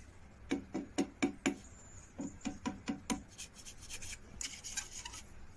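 Light metal-on-metal clicks and scraping as a small steel square is set and slid against the side of a cast-iron Record 010 rebate plane body, checking it for straightness. The clicks come about four a second for the first three seconds, with a softer scrape near the end.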